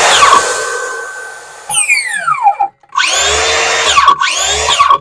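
Two cordless circular saws, a Metabo HPT 36V MultiVolt (C3607DB) and a Makita, free-spinning with no load. Their motor whine falls in pitch as the blades spin down over the first two seconds. About three seconds in, the Makita's trigger is pulled again and its motor whines, with a brief let-off about a second later. This is a side-by-side noise comparison in which the Metabo is judged the quieter saw.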